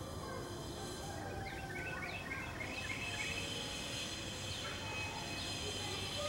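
Steady outdoor background noise with a low hum, and a quick run of short, high, falling chirps about one and a half to three seconds in, with a few single chirps later.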